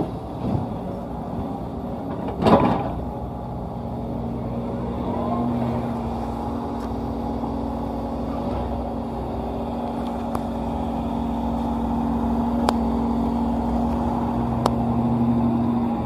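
Heavy diesel engines of an excavator and a dump truck running steadily. About two and a half seconds in comes a loud crash as a bucketload of wet clay drops into the steel truck bed. A few sharp clicks follow later.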